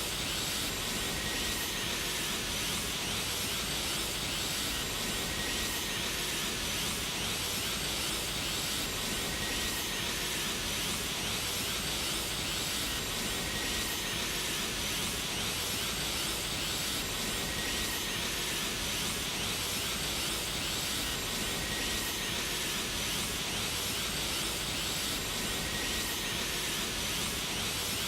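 Anime Super Saiyan Blue energy-aura sound effect: a steady, unbroken hiss, looped, with a faint falling whistle-like tone about every four seconds.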